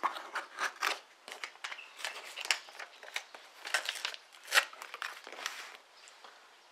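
Paper shipping documents and their pouch crinkling and rustling as they are cut and pulled off a cardboard box with a small craft knife, a run of irregular sharp crackles that dies away about six seconds in.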